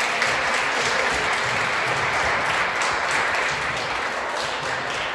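Applause: many people clapping steadily in a sports hall as the match is won.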